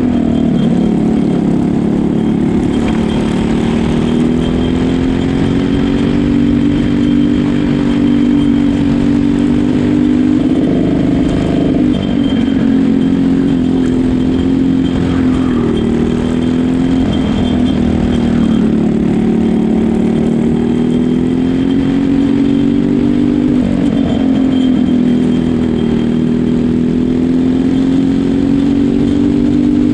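Racing kart's Briggs & Stratton LO206 single-cylinder four-stroke engine running hard at race pace. Its note climbs steadily, then drops sharply several times as the kart lifts off and slows for corners before climbing again.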